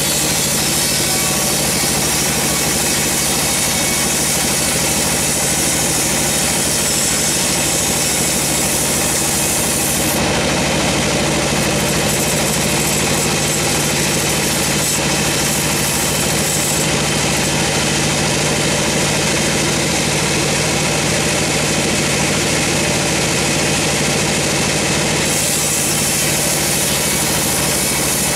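Band sawmill running, its motor giving a steady hum while the band saw blade cuts lengthwise through a teak log. The high, hissing part of the sound shifts about a third of the way in and again near the end.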